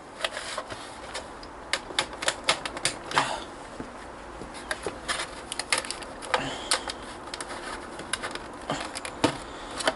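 Hands handling a clear plastic model-locomotive packaging case: scattered, irregular clicks, taps and crinkles of the plastic, with a brief squeak about six seconds in.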